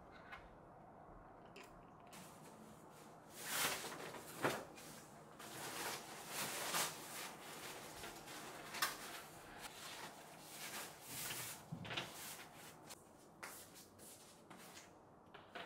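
Fabric liner of an IKEA SALUDING woven bamboo laundry basket rustling as it is pulled and tucked, starting about three seconds in, in a run of short swishes with a few light clicks.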